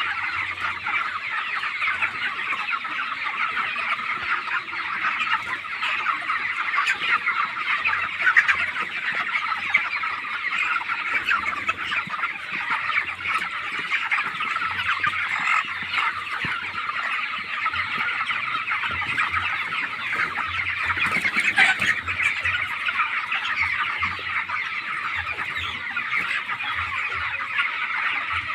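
A large flock of 25-day-old broiler chickens chirping and clucking together in a dense, continuous chatter.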